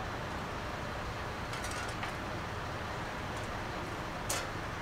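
Steady rumble of vehicle engines, with a few short hisses; the sharpest and loudest comes near the end.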